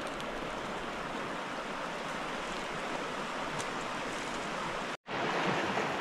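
Mountain river rushing, a steady noise of flowing water that breaks off for an instant about five seconds in.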